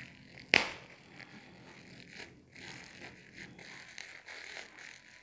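Plastic bubble wrap being unwrapped and handled: crinkling and rustling with small ticks, and one sharp snap about half a second in.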